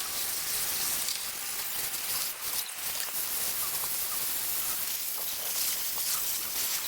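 Steady crackling hiss of water in the hot degreasing bath around the Teletype typing unit, with a fine, even patter.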